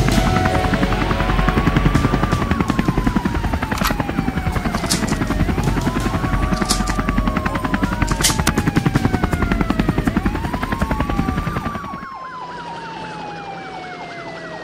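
A helicopter's rotor chops steadily under police sirens that wail, rising and falling slowly about every four to five seconds. About twelve seconds in the rotor sound cuts out, leaving the sirens, one of them now in a fast yelp.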